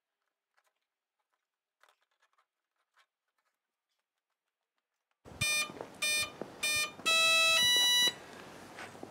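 Radio-control model electronics sounding start-up beeps: three short beeps, then a longer beep that steps up in pitch partway through.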